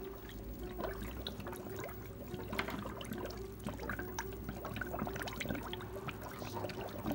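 Blue coolant gurgling and draining through a filling funnel into a car's cooling system, with many small bubbles popping and trickling as air works its way out.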